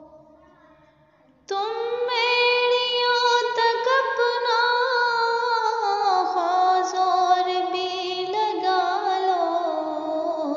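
A woman singing an Urdu nazm solo. After a short near-silent pause she comes in about a second and a half in, with long drawn-out notes that glide and slowly fall in pitch.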